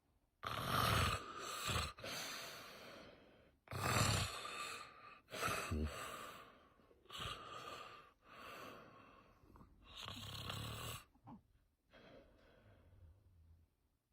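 A man snoring in deep sleep, a loud noisy snore on each breath in and out, about one breath every three seconds.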